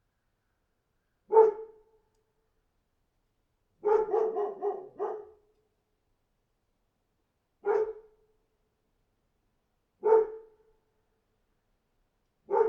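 A dog barking in separate single barks a few seconds apart, with a quick run of about five barks about four seconds in.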